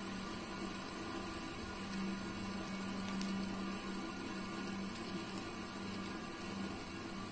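Fidget spinners whirring on a glass tabletop: a steady low hum over a hiss.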